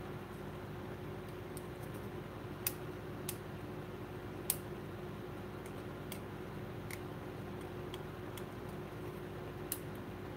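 Light, sharp clicks of plastic Nerf blaster parts being handled and set down on a workbench, a handful scattered through, over a steady low hum.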